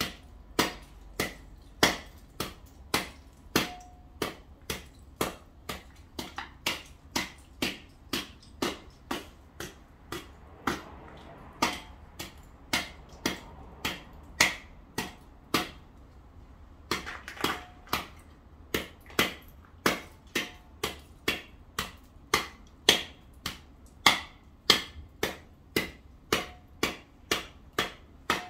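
Sharp, regular knocks of a hand tool chipping at ice on paved ground, about two strikes a second, with a short pause about halfway through.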